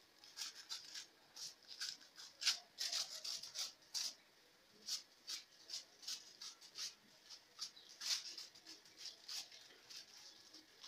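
Hands pressing and patting minced meat flat on buttered aluminium foil: faint, irregular soft pats and rubs, a few a second.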